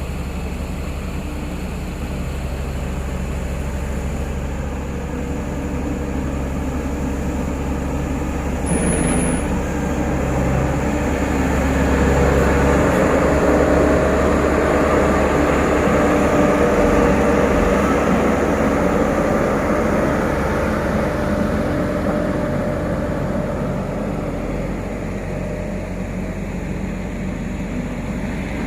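Diesel engine of heavy road-construction machinery running steadily, growing louder from about ten seconds in and then easing off again as the machine works. A short high squeak sounds about nine seconds in.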